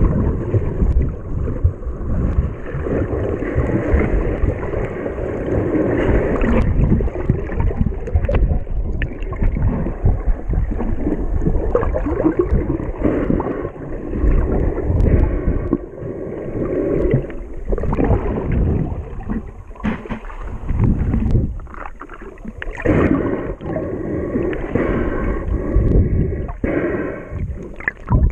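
Muffled churning and gurgling of water heard by a submerged camera, surging and easing irregularly as it moves through the water.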